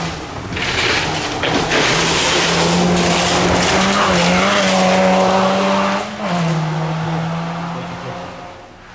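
Honda Fit rally car passing at speed on a gravel stage, its engine held at high revs under a loud rush of tyres on gravel. About six seconds in, the engine note steps down to a lower pitch, and the car fades away.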